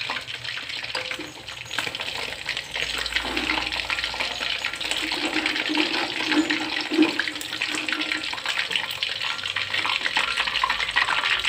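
Battered chicken pieces deep-frying in hot oil in a steel wok: a steady sizzle full of small crackles. A metal spatula and skimmer stir and lift the pieces, with an occasional scrape or clink against the wok.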